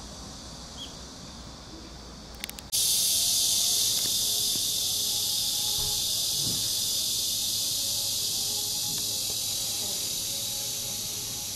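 Steady, dense high-pitched buzzing of a cicada chorus, which cuts in abruptly and loud about three seconds in after a quieter stretch that ends with a couple of clicks.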